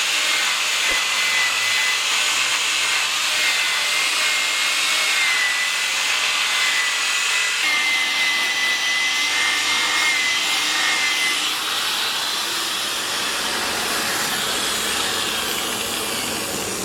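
Angle grinder working wood: a steady rasping hiss with a wavering high motor whine, the whine dropping out about two-thirds of the way through while the rasping goes on.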